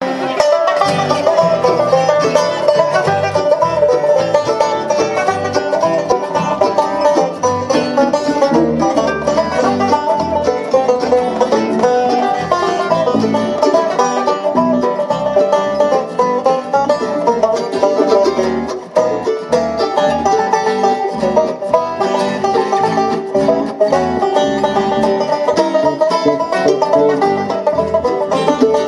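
Live bluegrass band playing: a rolling five-string banjo lead over mandolin, strummed acoustic guitar and a steady bass line.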